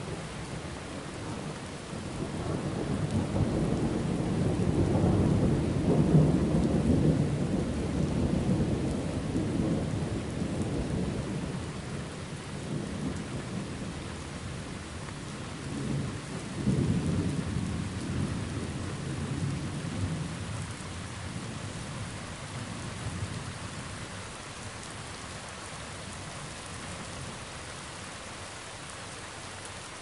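Steady rain with two long rolls of thunder. The first builds a couple of seconds in and rumbles for about ten seconds; the second, shorter one comes a little past the middle, and after it only the rain is left.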